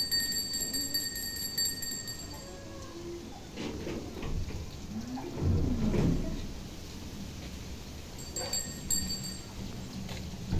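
Wooden hand cart's wheels rolling and rattling along a paved lane, a steady low rumble with a few light knocks. About halfway through a short wavering voice-like call rises and falls over it, the loudest sound in the stretch.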